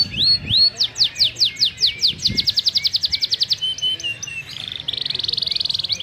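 Domestic canary singing. A run of repeated downward-sweeping whistled notes speeds up into a fast trill about two seconds in, followed by a few lower notes and, near the end, a rapid buzzing roll.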